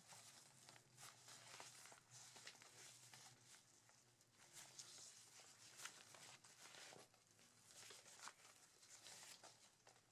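Faint rustling and scraping of a waist pack's fabric as hands pull its compartment open and move the lining about, in short irregular scratches.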